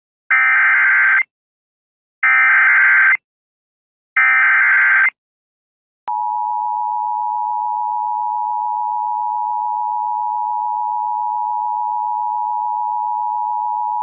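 Emergency Alert System SAME header: three bursts of digital data screech, each about a second long, about a second apart. About six seconds in, the two-tone EAS attention signal (853 and 960 Hz) starts and holds steady, signalling that an alert message follows.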